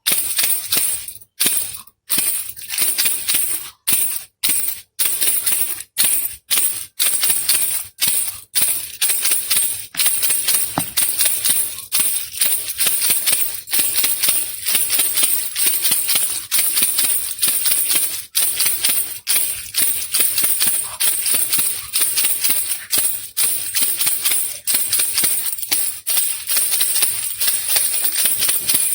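Baby rattle shaken steadily, its loose beads clattering in rapid rattles, with brief pauses between shakes that come often in the first ten seconds and again near the end.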